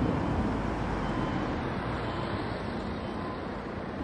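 Level-crossing warning signal sounding a short tone about once a second while the crossing barriers lower for an approaching train, over the steady noise of a car and road traffic.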